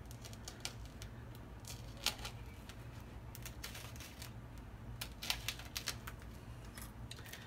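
Faint, irregular scratching and clicking of a single-edge razor blade cutting into the plastic wrapping of a package.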